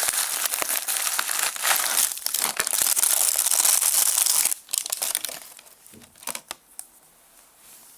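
Plastic packaging crinkling and tearing as it is unwrapped by hand, loud and continuous for the first half, then dying down to light rustles and a few small clicks.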